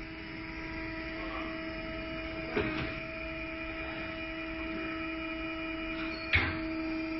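Truck tire changer running with a steady motor hum, broken by two sharp clanks: one about two and a half seconds in and a louder one near the end, as the wheel and tool head are set on the machine.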